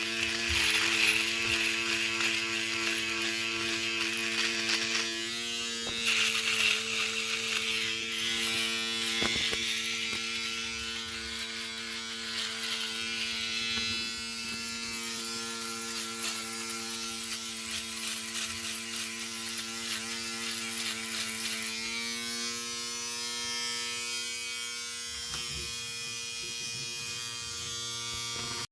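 Electric shaver running with a steady motor buzz and a raspy high-pitched edge that shifts in texture a couple of times.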